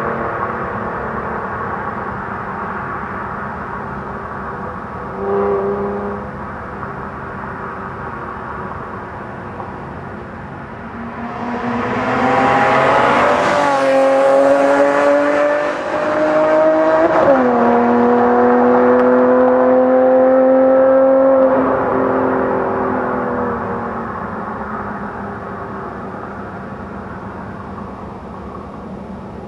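BMW E46 M3's straight-six, fitted with Evosport headers and a Supersprint Race exhaust, running at a distance with a brief rev about five seconds in, then accelerating hard toward and past, its pitch climbing. About seventeen seconds in the pitch drops at an upshift and climbs again before the sound fades as the car pulls away.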